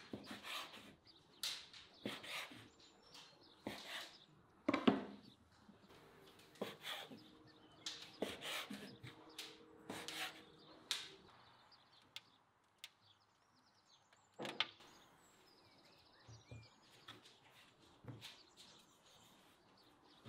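Large kitchen knife chopping through dough and striking a floured wooden board: a sharp knock every half second to a second for about eleven seconds, one more a few seconds later, then only faint bumps.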